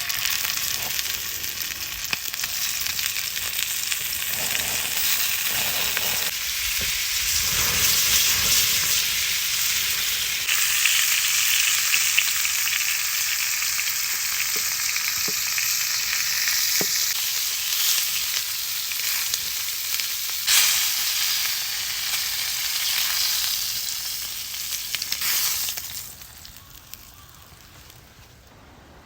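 Food frying in hot oil in a pan: a loud, steady sizzle with a few light knocks of the pan or utensil. It dies down near the end.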